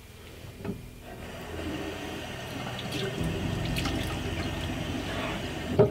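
Water running from a tap into a bathroom sink, starting about a second in and growing steadily louder. A sharp knock near the end is the loudest sound.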